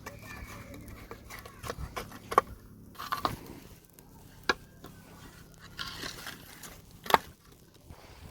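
Three sharp clicks or pops, a couple of seconds apart, over faint rustling and scraping.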